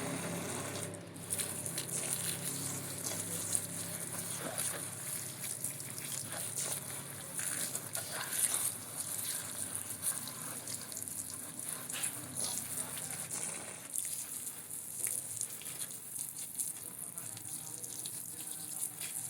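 Water running and splashing over a plastic Spider-Man action figure as it is rinsed, with scattered small clicks and knocks of the plastic toy being handled.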